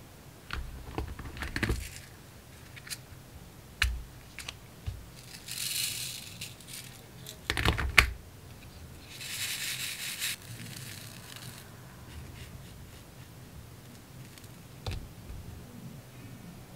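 Small plastic clicks and taps of diamond painting: a drill pen pressing resin drills onto the sticky canvas and the snap of a plastic storage-box lid, with one sharper click about halfway through. Twice there is a short rattling swish of loose drills in a plastic tray, each lasting about a second.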